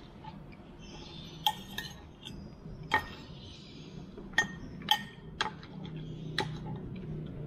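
Metal spoon clinking against a ceramic bowl while noodles are scooped: about six sharp, separate clinks over several seconds.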